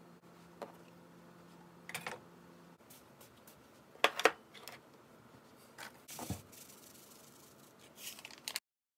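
Bento-packing handling sounds: light clicks of chopsticks against a stainless steel lunch box, then two sharp knocks about four seconds in as the metal rice box is set down, and a dull thump a couple of seconds later. Near the end comes a short rustling as a furikake packet is shaken over the rice, and then the sound cuts out.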